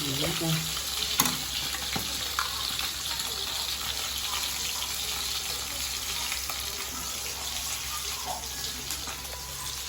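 Mullet frying in hot oil in a pan: a steady sizzle with a couple of sharp pops about one and two seconds in.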